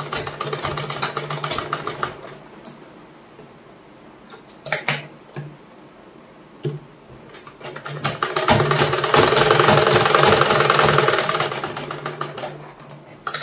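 Sewing machine stitching a double seam in two runs: it runs for about two seconds and stops. A quieter pause follows with a few sharp clicks as the fabric is adjusted at the needle. It then runs again, louder, for about four seconds before stopping, with one more click at the end.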